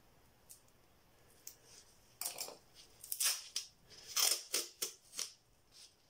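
A brand-new roll of painter's tape being handled. After a couple of faint clicks, a run of short, sharp ripping and crinkling sounds starts about two seconds in.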